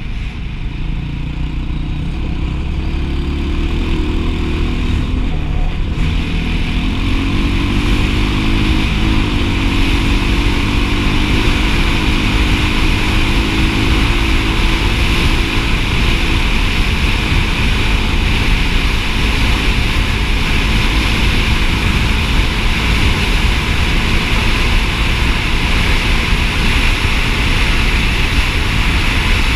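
Dirt bike engine running under way, its note climbing and shifting for the first half as the bike gathers speed, then holding steady. A strong rush of wind on the helmet-mounted microphone builds from about six seconds in and runs under the engine.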